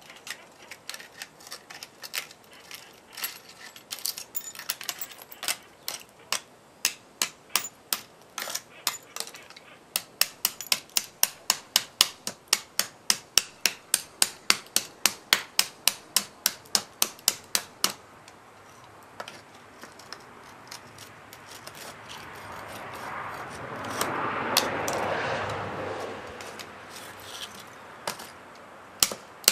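Pliers and a screwdriver chipping and prying at a slab of cooled thermite slag on a firebrick mold: sharp metal-on-slag clicks, scattered at first, then an even run of about three taps a second for several seconds. A little past the middle a rushing noise swells and fades over a few seconds, and a few more clicks come near the end.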